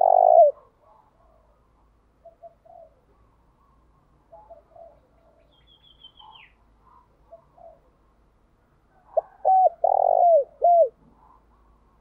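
Spotted dove cooing: one loud coo right at the start, then a phrase of four loud coos about nine seconds in. Fainter calls come in between, with one brief high, falling chirp from a small bird near the middle.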